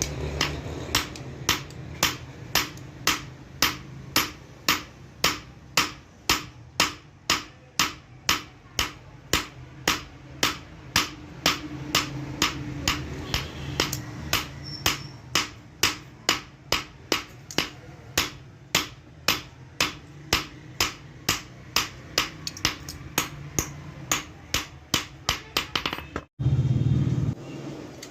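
Blacksmith's hand hammer striking metal in a steady rhythm, a little under two blows a second, over a low steady hum. Near the end the hammering stops and a short, loud low rumble follows.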